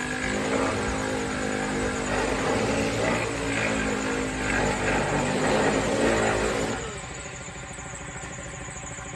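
Power sander working on a steel fender panel, its motor pitch wavering under load with the rasp of abrasive on metal; about seven seconds in it drops suddenly to a quieter, steadier run.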